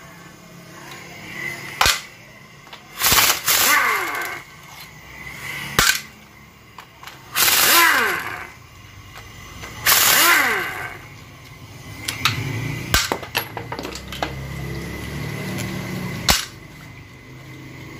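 Impact wrench spinning out the valve body bolts of a Daihatsu Xenia automatic transmission: about four short bursts, each winding down in pitch as it lets off. Sharp single clicks of metal on metal come between the bursts.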